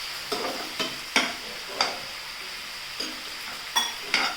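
Chicken pieces sizzling in a pan in a spiced masala with a little water just added, while a spatula stirs and scrapes through them in about seven quick, irregular strokes over a steady hiss.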